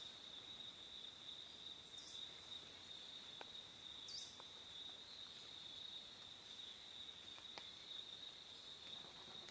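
Faint steady high-pitched insect trill, with a brief bird chirp about four seconds in and a few faint clicks.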